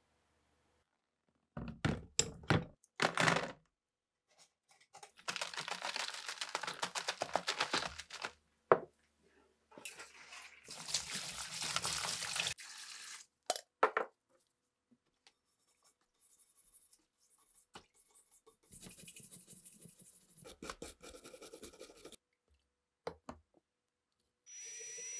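A stream of water pouring into a plastic tub over rusty rifle parts soaking in a soda solution. Separate sharp clicks and knocks come before and after it.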